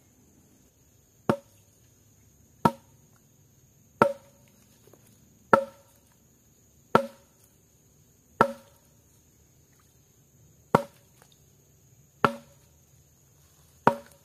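Chopping: nine sharp, evenly spaced blows, about one every second and a half with one longer pause in the middle, each with a short knocking ring.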